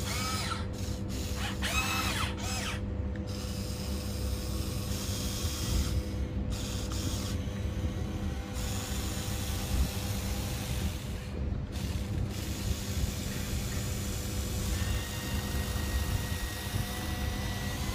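Huina 1594 RC excavator's small electric motors and gearboxes running steadily as the boom, arm and bucket move and the upper body swings round. There are a few rising and falling whines in the first couple of seconds.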